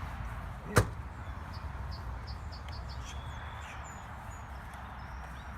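A sharp click about a second in, then a quick run of high chirps and a few short whistles, like small birds, over a steady low rumble of outdoor background noise.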